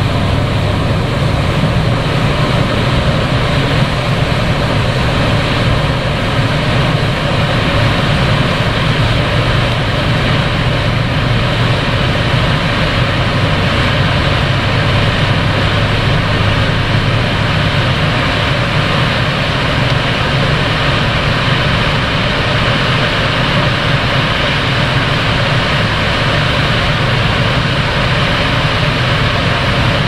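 River water rushing over a weir and through rocky rapids: a loud, steady rush with a deep low rumble underneath.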